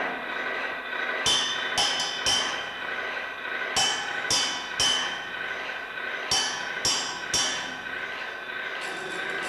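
A small hand hammer striking the rusty metal parts of a sculpture, played like a percussion instrument: three groups of three quick ringing strokes, each group about two and a half seconds apart. A steady high tone sounds underneath.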